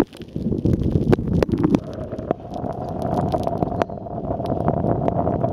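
Strong near-gale wind buffeting the microphone aboard a heeling sailboat, a loud low rumble, with spray splashing over the camera and a run of sharp ticks and knocks at the start. From about two seconds in a steady tone sits over the wind rumble.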